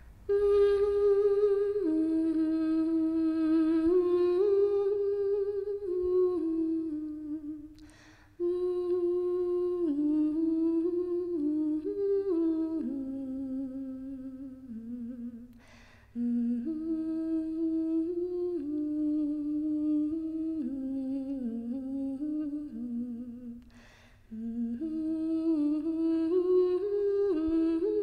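A solo voice humming a slow, wordless melody in long phrases of about eight seconds, with short pauses between them.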